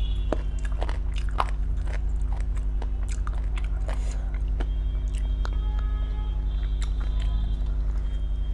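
Close-miked mouth sounds of eating: repeated small wet smacks and clicks of chewing and biting food.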